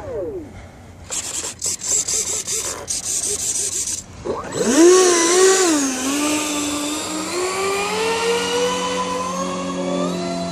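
Twin 70 mm electric ducted fans of a Freewing Su-35 RC jet whining as they are throttled up. After a noisy rush, the pitch wavers with throttle blips about halfway in, then climbs steadily as the fans spool up.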